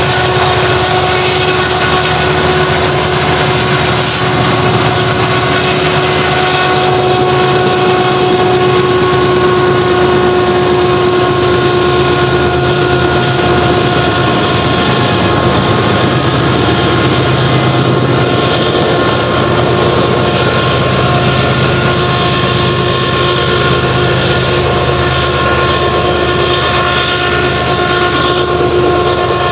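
A loaded 125-car coal train hauled by an EMD SD70MAC and further diesel-electric locomotives climbing a mountain grade as it passes close by. The engines run under load with a steady whine of several tones over a rumble, and loaded coal hoppers roll past near the end.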